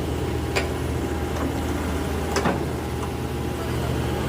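Heavy diesel engine running steadily, with two sharp knocks, one just after the start and one about two and a half seconds in.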